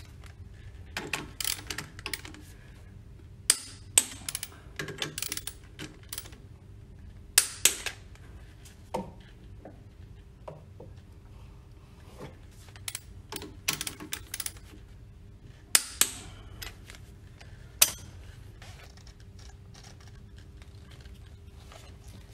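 Hand tools clicking and clinking against the metal split coupling of a Grundfos NBS pump as its bolts are tightened. Several sharp metallic clicks come at irregular intervals, some in quick pairs, with quieter rattling between them and a faint steady hum underneath.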